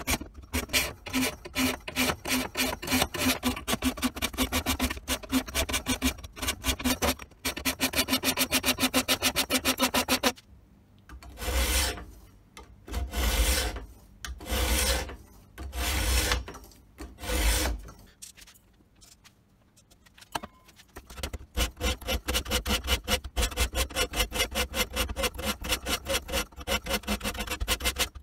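Hand file rasping back and forth across the edge bevel of a steel karambit blade cut from a motorcycle brake rotor, the file held in a guide jig. Quick, short strokes at first; then five slow, long strokes in the middle; then quick strokes again from about two-thirds of the way in.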